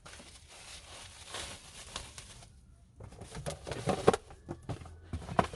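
Rustling of packaging, then a run of knocks and clicks from about three seconds in as the intake kit's parts are handled.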